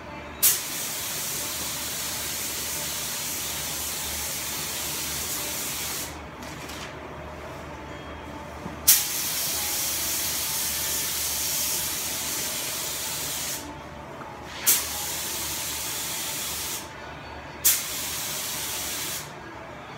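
Gravity-feed paint spray gun spraying in four spells of steady hiss, each opening with a sharp burst as the trigger is pulled: two of about five seconds, then two of about two seconds.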